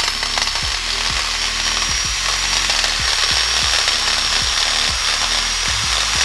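Corded electric drill running at steady speed with a high motor whine, its bit grinding into the metal of a coilover's mounting bracket to lengthen (slot) the bolt holes for more camber.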